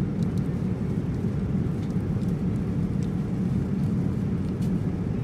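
Steady low rushing cabin noise of a Boeing 787-9 airliner in flight, with a few faint light clicks.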